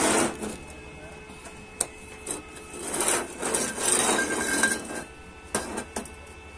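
Square steel tubes sliding and scraping across a steel plate table as they are moved into place, with a few sharp metal clinks as pieces are set down. There is a longer scrape in the middle and two quick clinks near the end.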